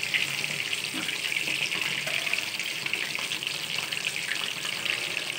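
Besan- and masala-coated fish pieces deep-frying in hot oil in a kadhai, the oil sizzling and crackling steadily.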